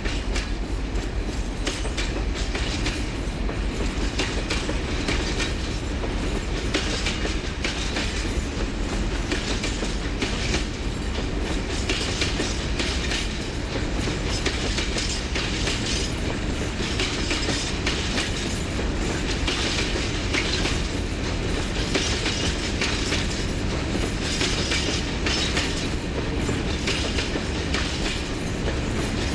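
Long freight train of box wagons rolling past at steady speed: a continuous rumble with the wheels clicking over rail joints.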